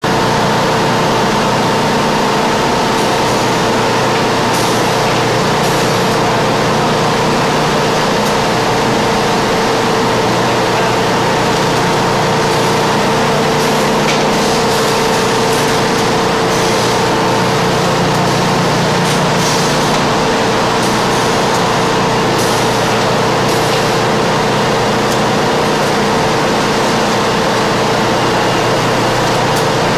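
Factory machinery running: a margarine filling line and its conveyor, giving a loud, steady mechanical noise with a constant hum and brief hisses every few seconds.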